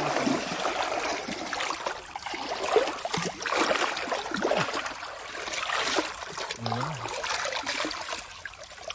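Shallow stream water splashing and sloshing irregularly as someone wades and works their hands and a bamboo fish basket through it, over the stream's steady trickle.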